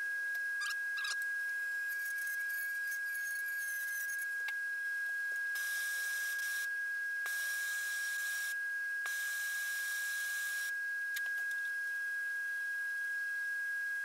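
Handheld gas torch hissing in three bursts, about halfway through, as its flame heats a cast aluminum cylinder head. A steady high-pitched whine sounds underneath throughout.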